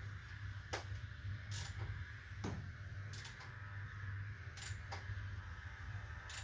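Sparse, irregular metallic clicks and taps of hand tools and parts being handled during under-hood work, roughly one every second, over a steady low hum.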